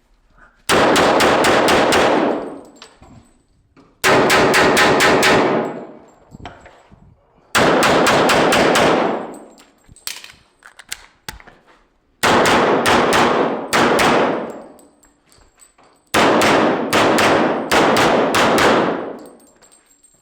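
EAA Witness Elite Match .40-calibre pistol firing in quick strings of several shots each, five strings a few seconds apart, the shots echoing in an indoor range.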